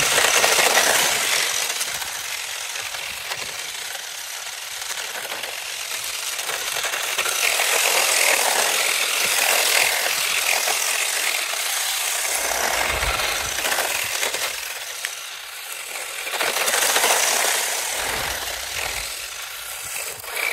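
Four-wheel-drive RC drift car on hard drift tyres, driven and drifted on a gritty cement road: a loud, gritty rattle of tyres and drivetrain that swells and fades with the throttle.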